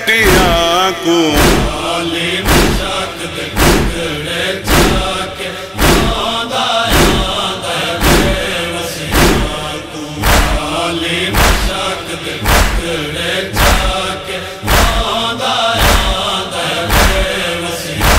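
Male voices chanting a noha, a Shia mourning lament, in unison over a steady rhythm of matam chest-beating thumps, about one heavy beat a second.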